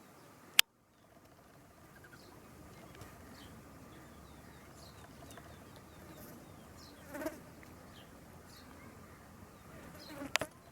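Outdoor bird and insect ambience: many small birds chirping in short high notes over a steady insect buzz. A sharp click and a moment's dropout come about half a second in. A louder call comes about seven seconds in, and a short loud peacock call near the end.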